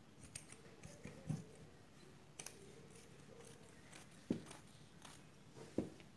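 Scissors cutting through folded fabric: a series of faint, irregular snips and clicks of the blades as they close on the cloth, with a few soft knocks.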